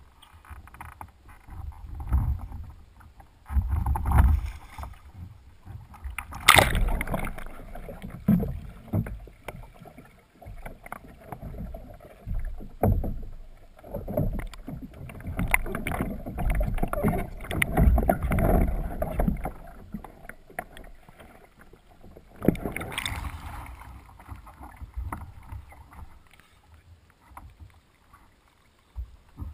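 Water splashing and sloshing around a sea kayak's hull, with low thumps, picked up by a GoPro in its housing on the bow as the paddler capsizes, climbs back in and rolls upright. A sharp splash comes about six seconds in, a long busy stretch of splashing follows in the middle, and another splash comes near the end.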